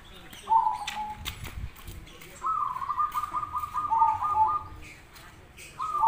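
Zebra dove (perkutut) cooing. A short coo comes about half a second in, then a long, rapid, stuttering phrase of repeated notes runs for about two seconds, and another phrase begins just before the end.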